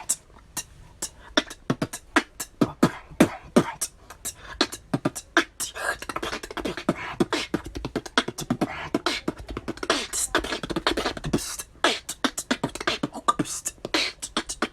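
Beatboxing: a fast, dense run of mouth-made drum sounds, sharp kick, snare and click strokes several times a second, with hissing sounds joining in after about six seconds.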